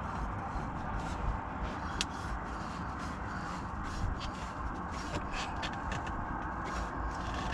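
Light scrapes and scattered clicks of a hand spinning a new oil filter onto the engine by hand and brushing against the plastic splash shield, over a steady background hum.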